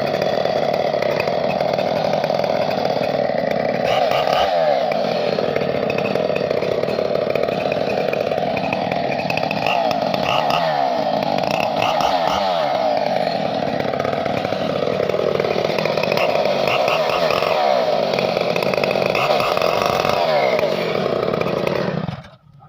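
Two-stroke chainsaw running at high revs, its pitch dipping and recovering every few seconds, then cutting off suddenly near the end.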